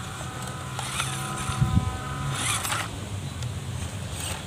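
Two small-scale RC crawler trucks driving over dry dirt: the thin, steady whine of their small electric motors and gearboxes, with a few short rasping scrapes of tyres on dirt and grit.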